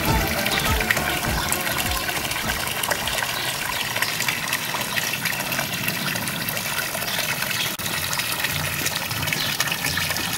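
Steady gush of water falling from a metal spout into a stone fountain trough, with music playing underneath.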